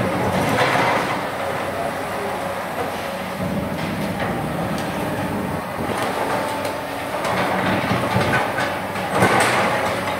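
Komatsu PC200 crawler excavator's diesel engine running steadily at working revs while it swings and digs, with scattered metallic clanks and rattles from the bucket and tracks, busiest near the end.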